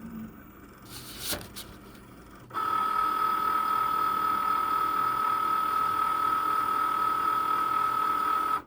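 Cricut Maker cutting machine: a short click or scrape about a second in, then a steady motor whine that starts about two and a half seconds in and stops abruptly near the end.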